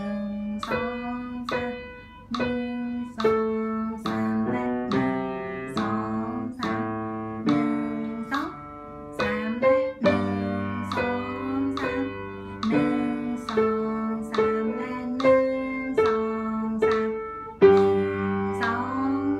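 Slow instrumental melody at tempo 70: single notes, each starting sharply and dying away, over low bass notes.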